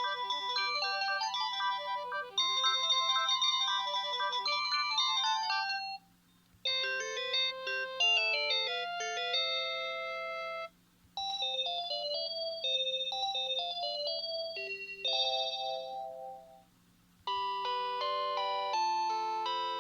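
Polyphonic ringtone melodies from a Panasonic KX-TGA810 DECT cordless phone handset, played through its speaker. A fast chiming tune stops about six seconds in, and other electronic melodies follow after brief silent breaks, with a new one starting near the end.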